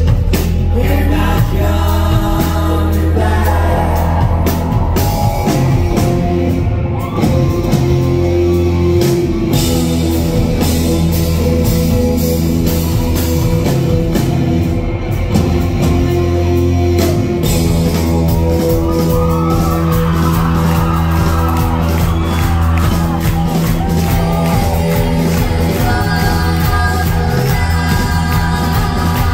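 Live rock band playing loud, with electric guitars, bass and drums and a woman singing, heard from the audience in a large hall.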